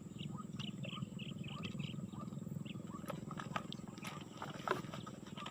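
Frogs calling in a swamp: a steady, dense chorus of fast, low pulsing, with short higher chirps and a few clicks scattered through it.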